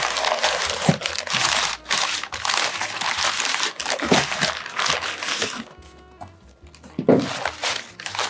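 Brown kraft packing paper crinkling and rustling as it is pulled and bunched out of a cardboard shipping box, continuously for about five seconds, then again briefly near the end.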